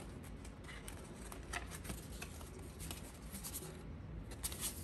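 Stiff cardstock postcards being handled and slid against one another: faint rustling with scattered light clicks, and a few sharper clicks near the end.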